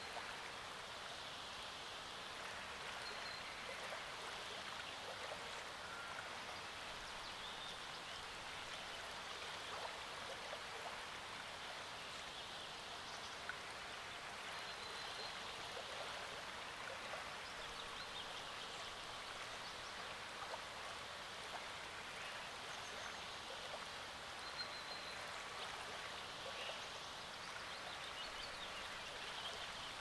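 Small lake waves lapping softly at the shore, a steady patter of little splashes. Faint short bird chirps come through a few times.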